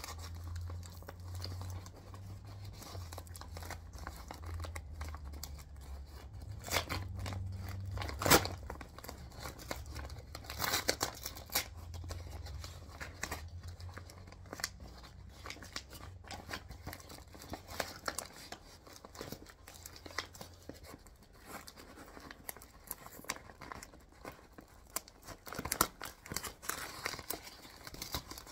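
Brown paper mailer being torn open and crinkled by hand: irregular ripping and rustling of the paper, with a sharp loud rip about eight seconds in and a few more a few seconds either side of it.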